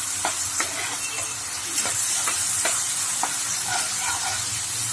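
Tamarind-date chutney paste sizzling in hot oil in a tava as it is stirred, with a steady hiss and the stirring utensil scraping the pan in short strokes every half second or so.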